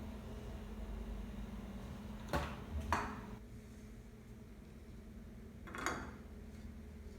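Three sharp knocks of kitchenware, two close together a couple of seconds in and one more near the end, over a steady low hum.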